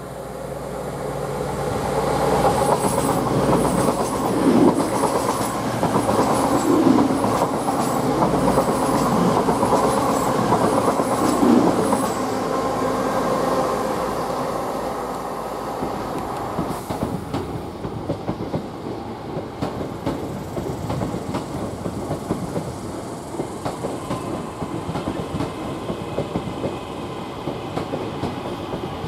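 CrossCountry Voyager diesel multiple unit running through the station. It swells up over the first couple of seconds, its wheels giving a regular clicking about once a second, then fades after about twelve seconds into a quieter rumble of train noise.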